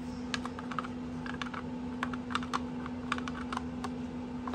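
Light, irregular plastic clicks and taps from a handheld multimeter's plastic case being fitted back together over its new 9-volt battery.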